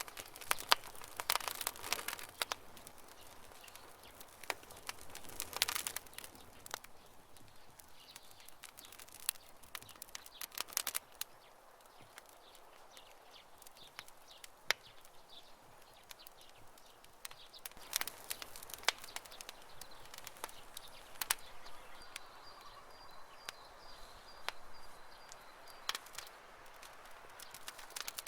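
Wood campfire crackling: irregular sharp snaps and pops over a soft hiss, coming in small bursts now and then.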